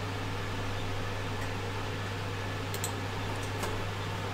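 Steady low electrical hum under a constant background hiss, with a few faint ticks about three seconds in.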